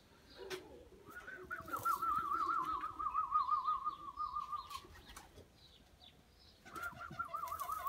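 A warbling whistle, wavering up and down a few times a second, held for about four seconds and then started again near the end: a whistled call to pigeons, with the flock stirring around it.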